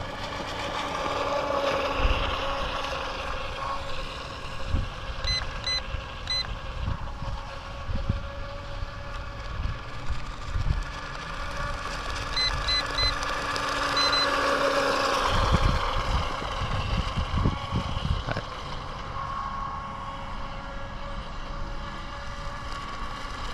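Brushless motor of a WLtoys WL915-A RC jet boat whining as it runs on the water, its pitch rising and falling with the throttle. Short high beeps sound in quick runs of two or three, about five seconds in and again around twelve to fourteen seconds. Low wind rumble on the microphone comes and goes.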